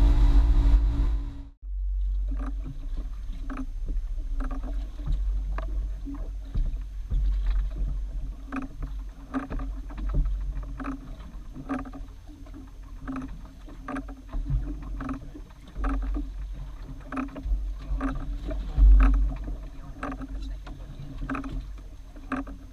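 Background music cuts off about a second and a half in. Then the sound of a boat lying at sea takes over: a steady low rumble of wind on the microphone, with a light click coming back about every three-quarters of a second.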